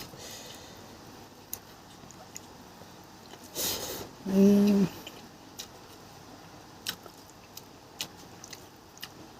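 A person eating fish: faint chewing with scattered small clicks, a short breathy noise about three and a half seconds in, then a brief hummed "mm" at a steady pitch about a second later.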